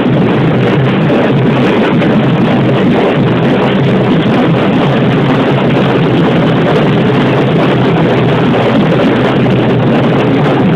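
Loud carnival parade music from a passing troupe, a steady, dense wash of sound with no clear pauses.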